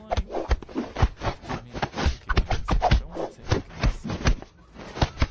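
Newborn kittens suckling at their mother cat: irregular wet clicks and soft thumps, about two a second.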